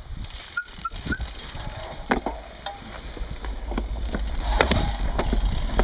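Mountain bike ridden along a dirt singletrack, heard from a camera on its seatpost: frequent clicks and knocks of the chain and frame rattling over the trail, with a few short squeaks about a second in. Wind rumble on the microphone builds toward the end as the bike picks up speed.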